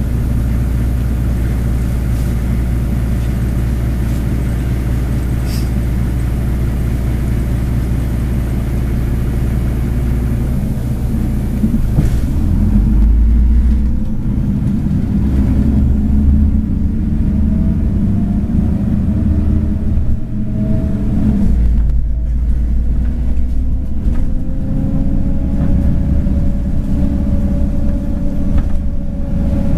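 City bus engine heard from inside the bus: a steady low idle, then about twelve seconds in the bus pulls away and the engine note rises, dropping back and climbing again as it changes gear.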